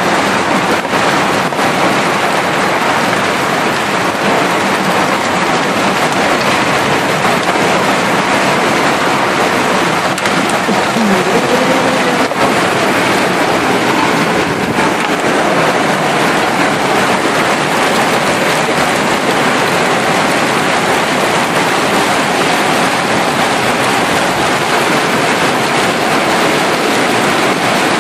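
Heavy hailstorm: hailstones pelting down in a steady, dense rush, heard through an open train window.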